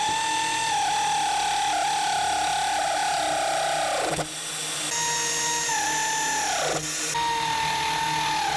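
Handheld electric power tool, drill-like, running at speed with a steady whine that sags briefly under load. The trigger is released twice, about 4 seconds in and near 7 seconds, the motor spinning down in a quick falling whine each time before it is run up again.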